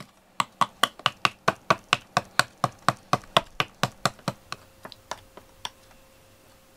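A wooden stick tapping quickly and evenly against a plastic bowl, about five taps a second, as medicine is mixed into a lickable cat treat. The taps slow and fade to a few light ticks after about four seconds.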